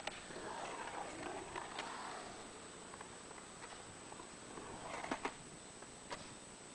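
Skateboard wheels rolling on a concrete bowl, with a few sharp clacks of the board on the concrete, two of them close together about five seconds in.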